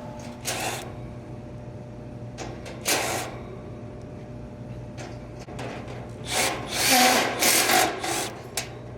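Scraping and rubbing of tools and sheet-metal parts being worked during disassembly of a package air-conditioning unit: two short scrapes, then a louder run of scrapes near the end, over a steady low hum.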